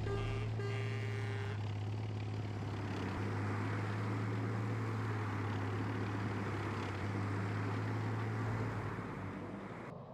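Cartoon vehicle engine sound effect running steadily with a low hum, dying away near the end.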